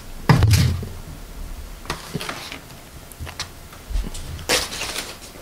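Paper plates being picked up and stacked on a table: a low knock just after the start, a few light clicks, and a short papery scrape about four and a half seconds in.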